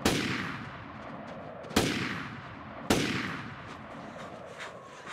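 Three pistol shots, one right at the start, then two about a second apart, each echoing and dying away over about a second. Light crunching footsteps in snow follow near the end.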